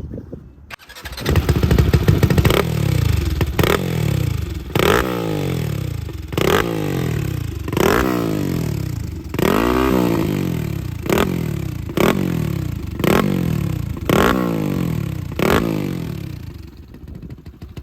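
Modified 275cc motorcycle engine with a handmade exhaust fitted with a dB killer. It starts about a second in and is then revved in about a dozen quick throttle blips, one longer rev near the middle, dropping back to idle between each.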